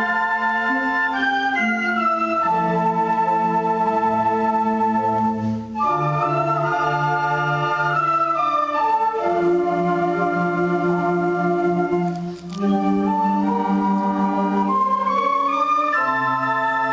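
Background music: a slow piece of held chords that change every second or two, with no drums. It breaks off briefly between phrases twice.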